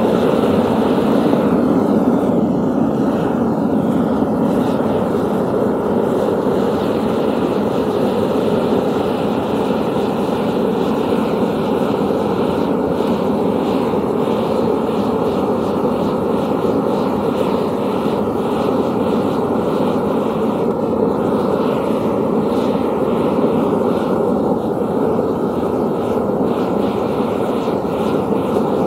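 Gas-fired melting furnace burner running, a constant even rushing noise that holds steady throughout.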